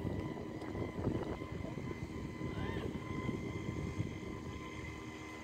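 Electric RC speedboats running on the water, a steady high motor whine over a low, uneven rumble.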